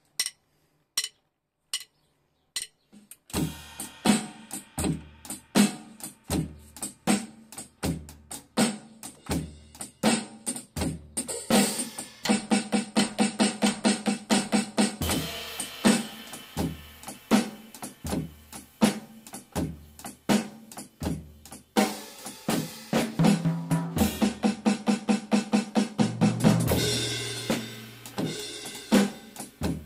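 Drum kit playing a shuffle groove of bass drum, snare and cymbals, after four evenly spaced clicks count it in.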